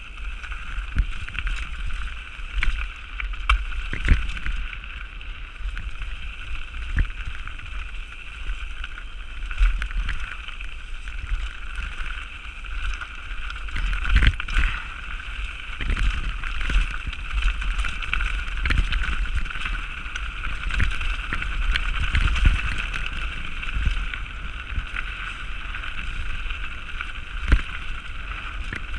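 Mountain bike descending a rough dirt trail: tyres rumbling over rocks and ruts, with frequent irregular sharp knocks and rattles from the bike at bumps, over a steady high whir.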